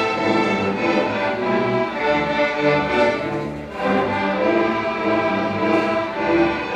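A school string orchestra of violins, cellos and double bass playing a piece together, the notes moving on continually without a pause.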